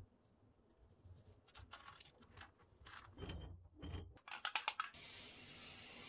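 Clicking and scraping as metal dumbbells are handled, with a low knock at the start and a quick run of sharp clicks about four seconds in. About five seconds in, an aerosol can starts spraying foam cleaner onto the rusty dumbbell bars in a steady hiss.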